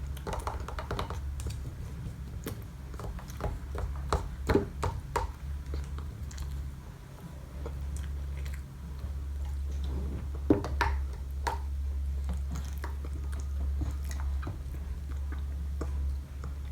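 Toddler eating a snack: chewing, with scattered small clicks and knocks, over a steady low hum.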